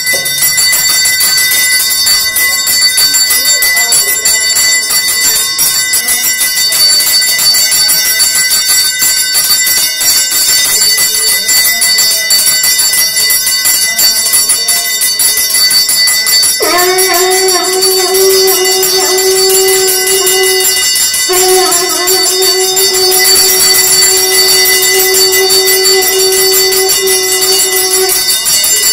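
Temple bells ringing rapidly and continuously during pooja, a dense metallic clangour. From just past halfway, two long steady blown notes are held over the bells, with a brief break between them.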